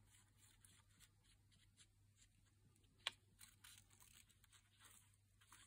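Near silence: faint rustles and small ticks of a paper cutout and glue bottle being handled, with one sharp click about three seconds in.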